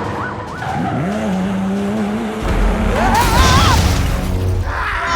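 Vehicle sound effects: a siren trailing off, then an engine revving up and running, then a tire squeal with a skid about three seconds in, over background music.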